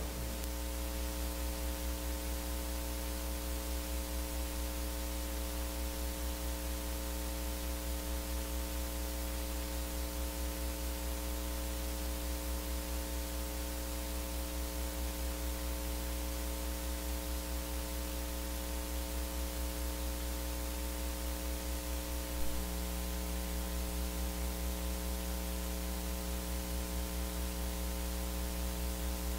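Steady electrical mains hum with a layer of hiss from the audio system. There is a small click about 22 seconds in, after which one hum tone grows a little louder.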